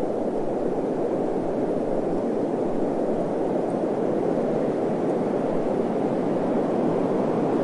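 Desert wind blowing steadily: an even rushing noise with no gusts, breaks or distinct events.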